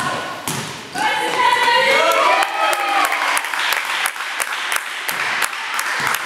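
Voices shouting in a sports hall, with a basketball thudding on the court floor several times as it is dribbled.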